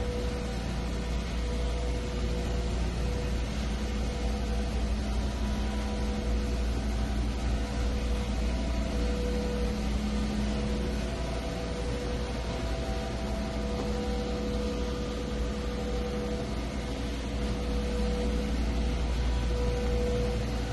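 Steady low rumble and hiss of indoor room tone, with faint humming tones near the middle of the range that fade in and out.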